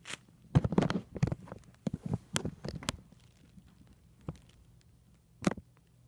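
Handling noise: a quick run of knocks and rustles over the first three seconds, then one more knock about five and a half seconds in, over a faint steady low hum.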